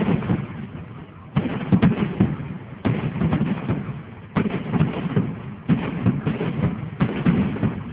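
Fireworks going off in a steady series, a bang about every second and a half, each followed by crackling that dies away.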